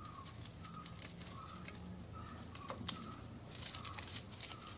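A bird calling outdoors, repeating a short, faint note about twice a second, with a couple of light clicks about three seconds in as coconut shells and sticks are laid into a stone fire pit.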